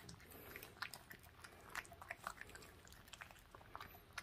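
Puppy eating raw duck tenderloin from a stainless steel bowl: faint, irregular chewing smacks and clicks.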